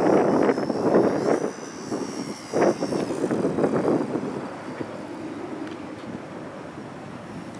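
Electric-motor whine of a HobbyZone Super Cub RC plane in flight, rising in pitch about two seconds in, under gusts of wind buffeting the microphone that ease off after about four seconds.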